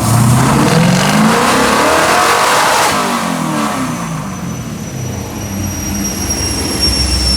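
Fox-body Mustang V8 making a full-throttle pull on a chassis dyno: the revs climb for about three seconds, then fall away as it coasts down on the rollers.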